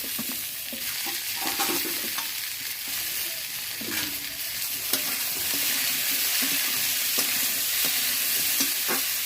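Food frying in hot oil in a pan with a steady sizzle, while a spatula stirs it and knocks against the pan now and then.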